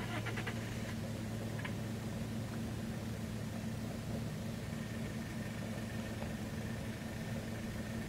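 Car engine idling with a steady low hum, with a quick run of rapid high clicks right at the start.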